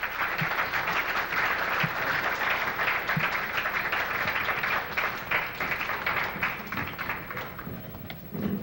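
Audience applauding: a dense patter of many hands clapping at once, which thins out near the end.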